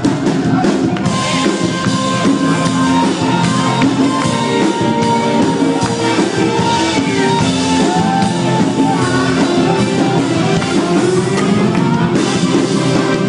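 Live stage band playing loud, steady music with a drum kit.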